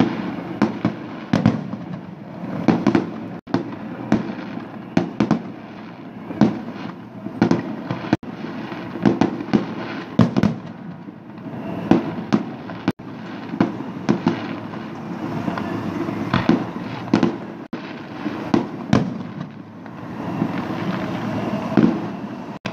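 Festive fireworks salute: aerial shells bursting in a fast, irregular string of bangs, often several a second, over a continuous rumble.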